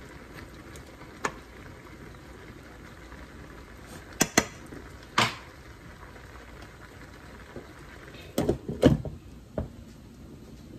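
A metal utensil clinking against a stainless steel pan of potatoes and cabbage a few times, then a glass pan lid clattering into place on the pan near the end, over a faint steady hiss.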